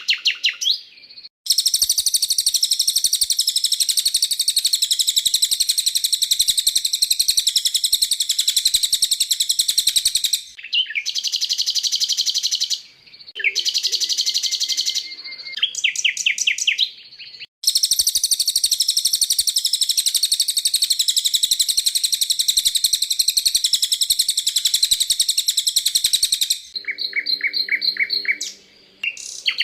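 Recorded songbird song spliced from several birds: long runs of fast, high, continuous trilling, with shorter phrases of other songs in between, each cutting off abruptly into the next. It is a masteran mix, song played to caged songbirds for them to learn.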